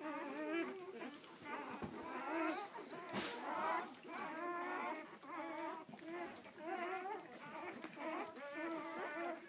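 A litter of newborn Weimaraner puppies, a few hours old, crying and squeaking in many overlapping, wavering cries, almost without pause. A couple of soft knocks come early on as the mother nuzzles them.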